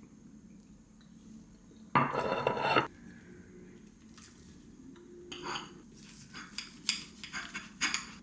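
Cutlery and dishes clinking while eating: a louder noise lasting about a second starts about two seconds in, then a run of short clinks near the end.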